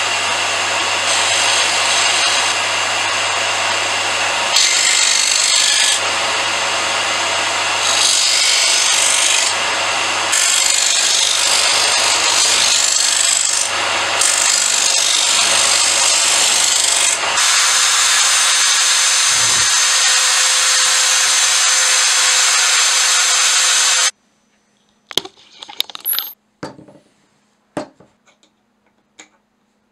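Electric disc sander running with a steady motor hum while a small wooden block is pressed against the sanding disc, the grinding noise swelling and easing as the wood meets the disc. About 24 seconds in it cuts off abruptly, followed by a few light clicks and knocks of small parts set down on a wooden board.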